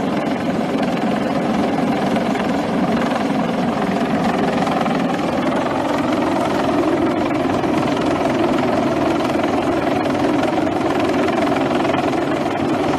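CH-53 heavy-lift helicopter's rotor and turbine engines running steadily while it hovers and climbs with another helicopter slung beneath it on a cable. The sound is a continuous dense whirring that is a little louder in the second half.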